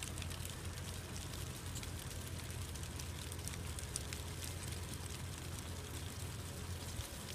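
Car engine idling with a steady low hum, heard from inside the vehicle, over a faint irregular pattering of many sheep hooves on the asphalt.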